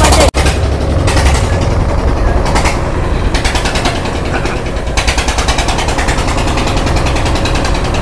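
Motorboat engine running loud under way, with a rapid, even beat of its firing pulses; the sound drops out for an instant near the start.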